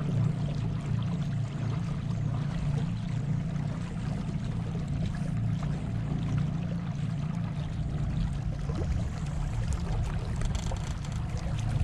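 A small boat's motor running steadily under way, a constant low hum, with water washing along the hull.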